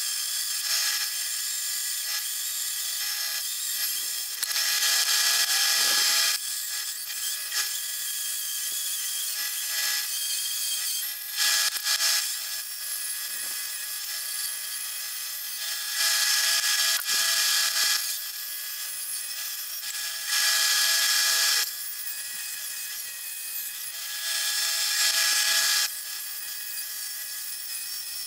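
Bandsaw running with a steady high whine as it rips small logs into boards. The cutting gets louder and hissier in five stretches of one to two seconds.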